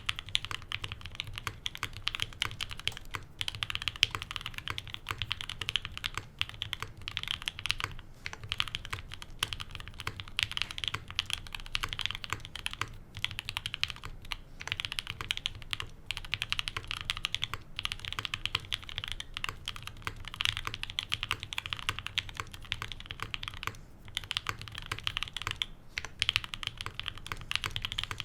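Steady typing on a Mode65 custom mechanical keyboard with a POM plate, case and plate foam, 67g Tangerine linear switches and GMK keycaps: a fast, continuous run of keystroke clacks with a few short pauses. A faint fan hum runs underneath.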